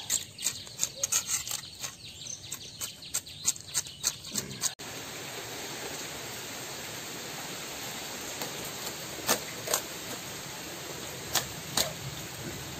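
A knife scraping scales off a large katla fish, a fast irregular run of sharp scratchy clicks. After an abrupt change about five seconds in, a steady hiss continues, with four sharp clicks near the end as the fish is cut into pieces on a boti blade.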